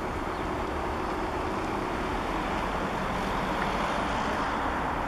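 Steady road traffic noise, a continuous rush of passing cars, swelling a little about three to four seconds in.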